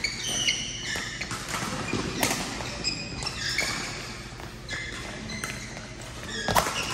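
Badminton rally: rackets striking the shuttlecock with sharp cracks, the loudest near the end, and court shoes giving short high squeaks on the synthetic floor between shots.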